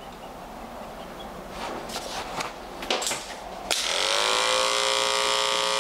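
Electric pet grooming clipper switched on about two-thirds of the way in, its motor quickly spinning up to a steady high hum and running on; before that, a few scattered sharp clicks of handling.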